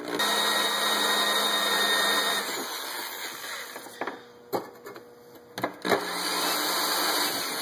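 A cheap electric hand drill runs at moderate speed, drilling a 1/8-inch pilot hole through stainless steel flat bar. It stops about two and a half seconds in, and a few clicks and knocks follow. About six seconds in it starts drilling again.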